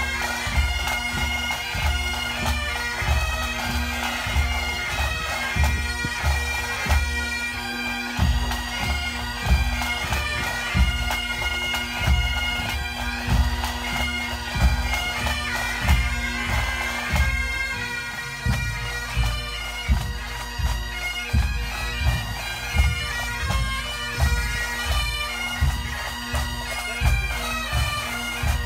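A pipes and drums band playing: massed Great Highland bagpipes hold their steady drone under the chanter melody. A bass drum keeps a steady beat about twice a second.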